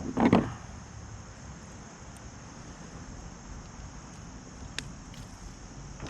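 A quick swish of a fishing rod being cast, about a quarter second in. After it comes a steady, faint, high-pitched drone, likely insects, and a single faint click near the end.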